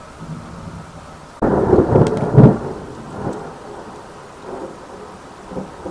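A sudden loud rumbling clatter that starts about a second and a half in and fades over the next second and a half, followed by a few small knocks: handling noise from the robot parts being worked on the table close to the camera.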